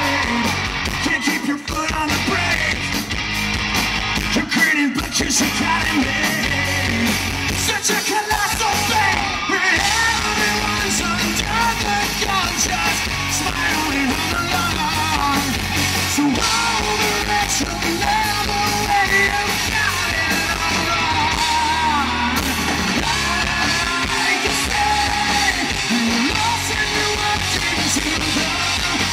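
Live rock band playing with a male lead singer, electric guitars and drums, heard loud through the stage sound system from the audience.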